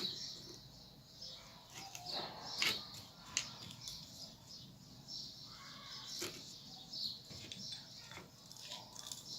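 Faint scraping and light clicks of a spoon working a thick castor-oil paste into a small container, scattered irregularly.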